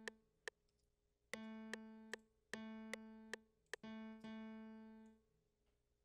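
Software grand piano in FL Studio's piano roll playing back the same low note three times in a row, each struck and fading over about a second. A short click comes at an even pace between the notes.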